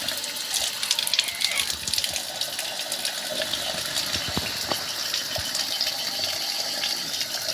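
Water running and splashing: a steady rush with many small splashes.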